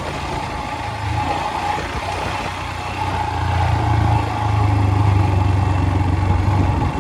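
Engine of the vehicle being driven over a rough off-road track, running steadily and working a little harder from about halfway through.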